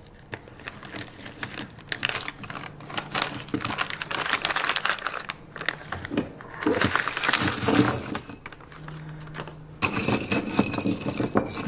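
Small 3D-printed stainless steel parts clinking and jingling against one another as a bag of them is handled and tipped out, with the plastic bag rustling and crinkling.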